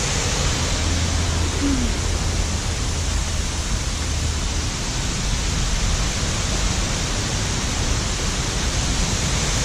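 Steady rush of falling water, a loud unbroken hiss with no changes.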